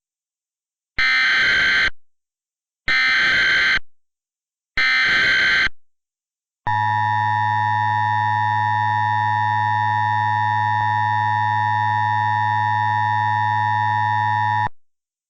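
Emergency Alert System tones in the style of a SARA encoder: three short warbling data bursts (the SAME header) about two seconds apart, then a long, steady, harsh buzzing attention tone lasting about eight seconds that cuts off suddenly.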